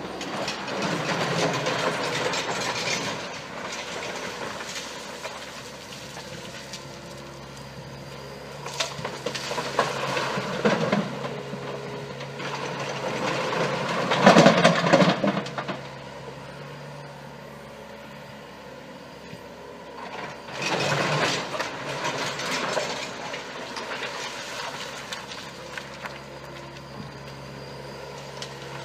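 Mini excavator engine running steadily, with four louder surges of working noise as the machine digs and loads.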